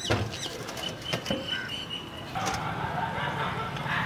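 A sharp knock near the start as a stone is set down on the metal lid of a large biryani pot, weighting it for dum cooking. Birds call around it, with a thin steady whistle for about two seconds.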